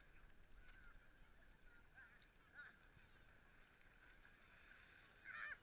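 Near silence with a few faint, distant shouts of people playing in the water; the loudest comes near the end.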